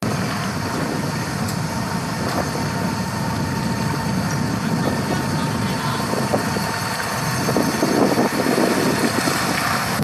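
Electric catamaran trash skimmer running on harbour water: steady churning water and wind noise, with a faint steady whine through the first half.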